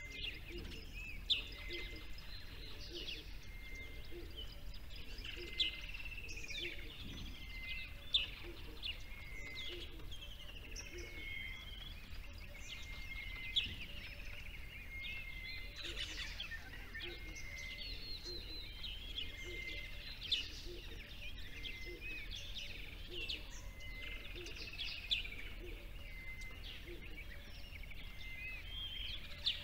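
Birdsong chorus: many small birds chirping and trilling, with one short note repeated about once a second, over a low steady hum.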